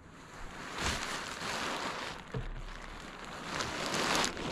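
A2 spinnaker's wet sailcloth in its sock rustling and scraping as it is pushed up and out through a deck hatch, swelling twice, with a couple of dull thumps.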